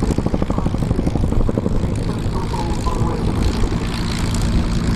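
RAF Boeing Chinook tandem-rotor helicopter flying a display, its rotors beating in a rapid, even pulse (blade slap) that eases after about two seconds into a steadier rotor and turbine hum.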